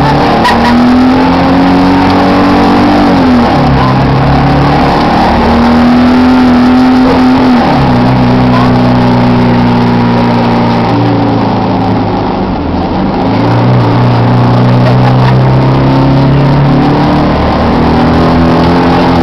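Heuliez GX 427 bus engine running under way, its hum holding a steady pitch for a few seconds at a time and then shifting step by step several times. It carries the abnormal engine noise blamed on a fault between the air-conditioning compressor and the engine.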